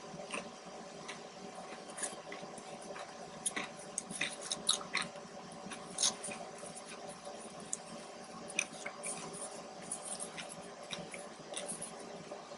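A person chewing food close to the microphone: irregular wet clicks and squishes, with a steady low hum behind.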